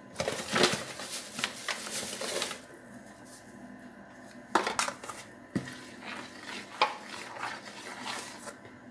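Metal spoon scraping and clinking against a plastic mixing bowl as thick cornmeal cookie dough is stirred, busy for the first couple of seconds. After that come a few separate sharp knocks and softer scraping as flour is mixed into the dough.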